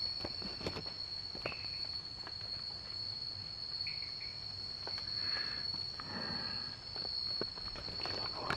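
Night insects, crickets or similar, chirring in a steady high-pitched unbroken chorus, with a few faint clicks and rustles over it.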